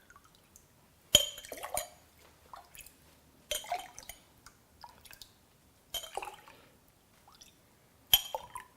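Tea being ladled into a glass: four scoops about two and a half seconds apart, each a sharp clink of the ladle on the glass followed by a short splash of liquid pouring in.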